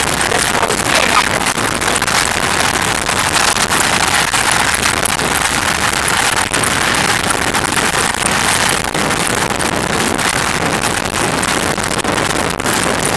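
Steady rushing noise of a moving vehicle, with wind on the microphone.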